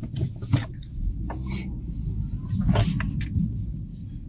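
Car engine and tyres running at low speed, a steady low rumble heard inside the cabin, with a few scattered knocks and clicks from the interior.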